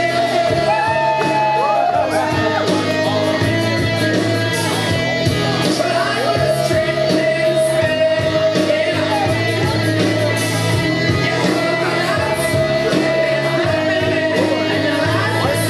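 Rock-and-roll music with singing, playing loudly and steadily, with one long note held through most of it.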